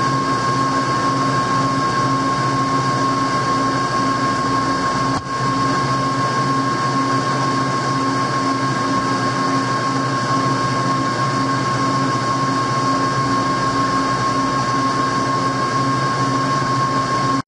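Metal lathe running under power feed while a two-wheel knurling tool rolls a knurl into the turning shaft: a steady machine hum with a constant whine and a low throb that pulses evenly. The sound dips briefly about five seconds in.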